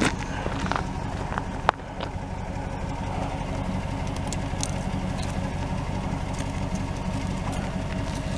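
Chevrolet pickup's engine idling steadily, heard close to the tailpipe's exhaust. A single sharp click comes a little under two seconds in.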